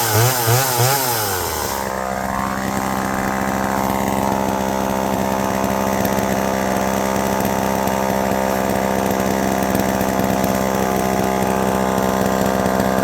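Homelite EZ two-stroke chainsaw engine blipped up and down in several quick revs at the start, then dropping to a steady idle that holds for the rest of the time.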